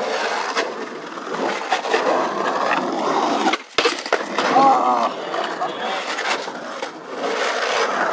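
Skateboard wheels rolling and carving on the rough concrete of an empty swimming pool: a continuous gritty rumble. It drops out briefly about three and a half seconds in, with a sharp knock just after.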